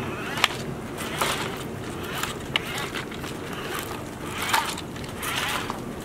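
HuiNa remote-control toy dump truck with a toy excavator on board, its small electric motors whirring in short spurts as it rolls over gravel, with crunching and a few sharp plastic clicks.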